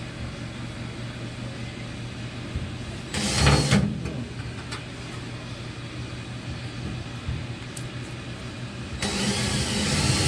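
Power drill running in bursts, drilling holes through the car's floor pan around the subframe connector: a short run about three seconds in and a longer one starting near the end, over a steady low hum.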